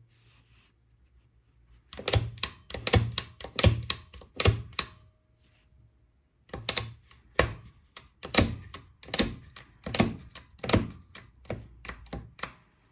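Odhner Model 8 pinwheel arithmometer's carriage shifting mechanism clicking as the carriage is stepped from place to place: a run of sharp metal clicks, two to three a second. The clicks stop about halfway through, then a second, longer run follows.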